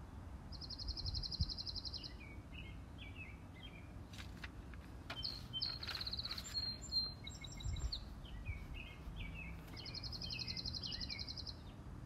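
Wild songbirds singing: a rapid, even, high trill followed by a run of short lower chirps, heard twice about nine seconds apart, with other chirps and a few sharp clicks in between, over a steady low background rumble.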